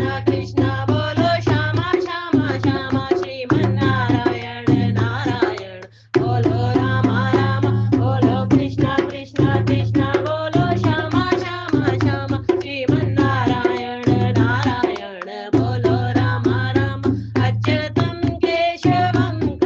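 Hindi devotional bhajan music: tabla-style hand drums keep a steady rhythm under a wavering melody line. The music cuts out briefly about six seconds in, then resumes.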